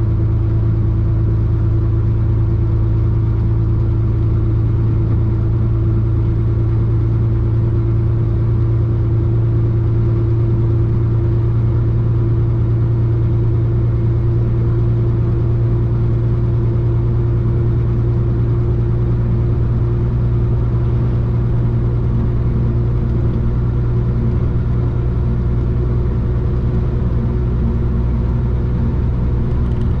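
Chenglong concrete mixer truck's diesel engine running as the truck is driven, heard from inside the cab: a steady, low drone that holds almost the same pitch throughout.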